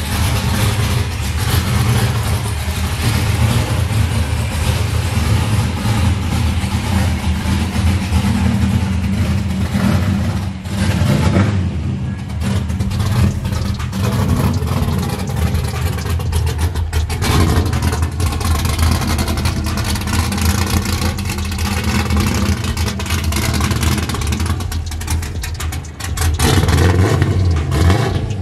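Swapped-in 5.7 L LS1 aluminium-block V8 with a stage 4 BTR camshaft, running as the Mazda RX8 pulls out of a garage and rolls across a lot at low speed. A deep exhaust note that dips briefly a few times.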